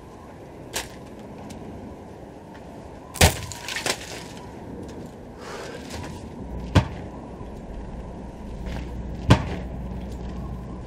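Axe blows chopping wood on a wooden chopping block: five sharp chops spaced one to three seconds apart, the loudest about three seconds in. A low steady rumble comes in about two-thirds of the way through.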